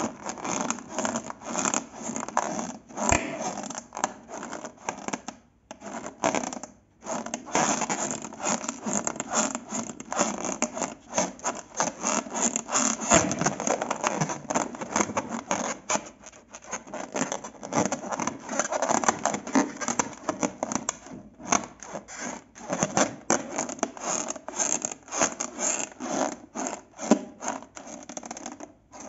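Glossy slime being mixed and worked, a dense run of fast sticky crackles and clicks that stops briefly twice, about five and a half and seven seconds in.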